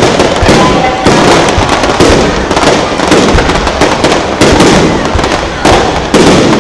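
Fireworks display: a rapid barrage of loud bangs, a new burst roughly every second, over dense continuous crackling from the bursting stars.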